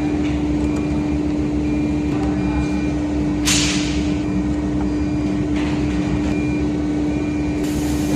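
Lock and hinge milling machine running with a steady motor hum, broken by short hisses about three and a half seconds in, again near six seconds, and near the end.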